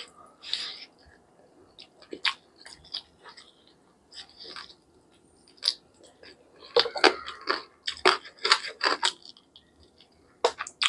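A man chewing a mouthful of chicken curry eaten by hand: a string of short, clicky mouth sounds, busiest from about seven to nine seconds in.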